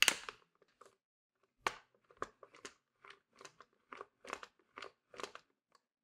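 A vacuum brush bar being slid back into its clear plastic cleaner head and its end cap fitted: a brief scrape at the start, then about a dozen light, irregular plastic clicks and rattles as the parts are seated.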